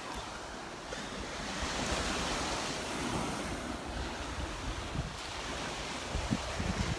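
Gulf of Mexico surf washing onto the beach, swelling about two seconds in, with wind rumbling on the microphone.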